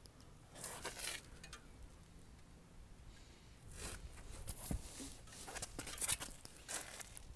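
Faint scattered rustles and scuffs over a low rumble, with a short scuff about a second in and a few more from about four seconds on.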